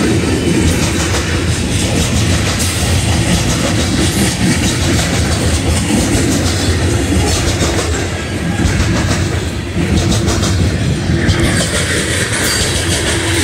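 Freight cars of a BNSF coal train rolling past close by: a steady, loud rumble of steel wheels on rail, with many small clicks of the wheels over the track.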